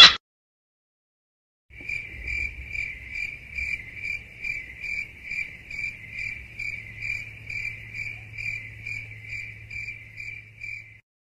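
Crickets sound effect: an even, steady run of cricket chirps, about two and a half a second, starting about two seconds in and stopping shortly before the end. It is preceded by a brief loud sound right at the start.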